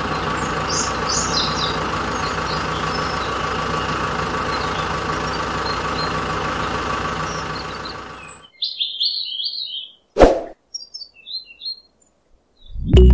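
A steady machine drone with birds chirping over it. The drone cuts off about eight and a half seconds in, leaving only the birds and a single sharp knock about ten seconds in.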